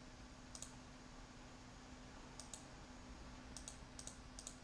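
Faint computer mouse clicks, about eight scattered through, some in quick pairs.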